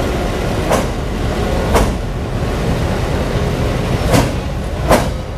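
A locomotive rolls slowly with a steady heavy rumble, broken by four sharp metallic clanks at uneven intervals as its wheels pass over rail joints.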